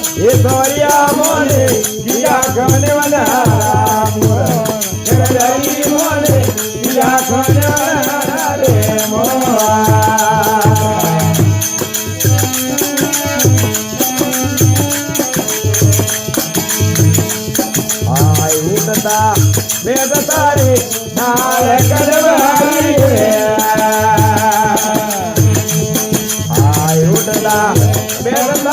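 Rajasthani folk bhajan music: an instrumental passage with a bending melody over a steady drum beat and a shaken rattle.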